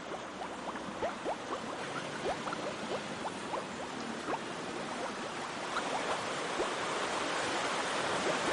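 A shallow river flowing over stones: a steady rush of water with many small gurgles and plinks, growing slightly louder toward the end.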